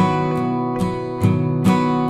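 Background music: an acoustic guitar picking notes at a steady pace, roughly two or three plucks a second, each note ringing on.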